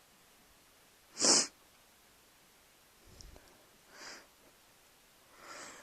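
A stifled sneeze about a second in: one short, sharp hiss forced through the nose and mouth. Then faint breathing, with a breath drawn in near the end.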